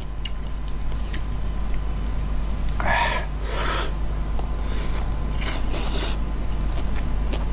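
Close-miked eating sounds as a handful of rice noodles with papaya salad is lifted by hand and taken into the mouth: short bursts of breathy slurping and mouth noise, about three seconds in and again around five to six seconds in, over a steady low hum.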